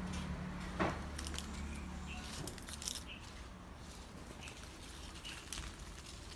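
Leafy tree branches rustling and crackling as a baby monkey climbs and grabs among them, with a sharp click about a second in and another near three seconds, over a steady low hum.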